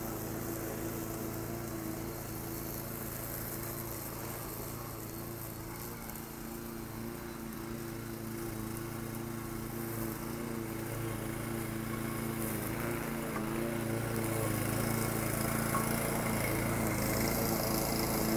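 Petrol walk-behind rotary lawn mower running steadily while cutting grass. The engine note holds even and grows louder in the second half as the mower comes closer.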